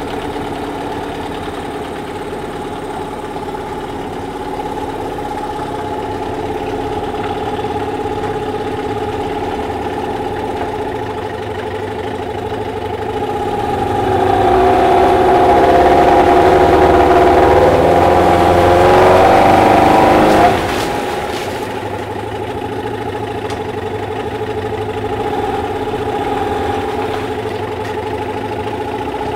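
SEA-PRO T9.9S two-stroke outboard motor running in a test tank. It idles steadily, then is throttled up about 13 seconds in and runs faster and louder for about seven seconds, then drops back to a steady idle. It runs normally after repair.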